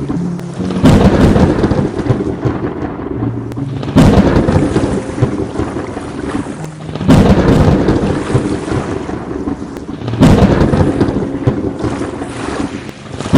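Thunderstorm with steady rain. Four loud thunderclaps break in about every three seconds, each fading into a rumble.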